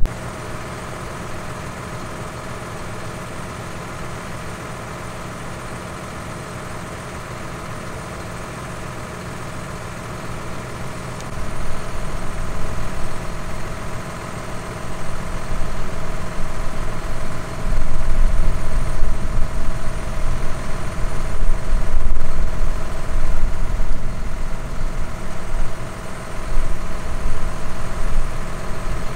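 Large diesel farm machinery running steadily. From about eleven seconds in it grows louder and uneven, with a heavy low rumble.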